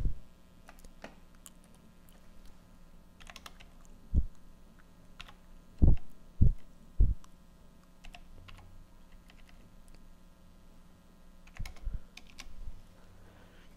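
Computer keyboard keystrokes as grades are typed into a spreadsheet: a few scattered key presses and clicks, with three heavier knocks a little past the middle.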